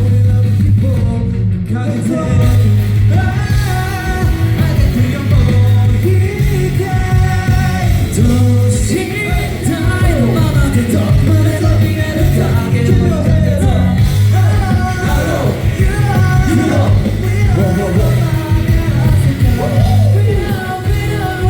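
Male pop vocal group singing live over amplified pop music, a heavy, steady bass pulse running under the voices.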